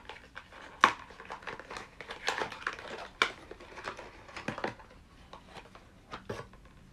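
Product packaging being opened and handled: crinkling and rustling with irregular sharp clicks, the sharpest about a second in and about three seconds in, dying down near the end.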